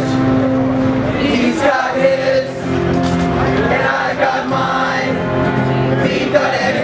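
A crowd singing along in chorus with a live band playing a song, many voices holding the tune together.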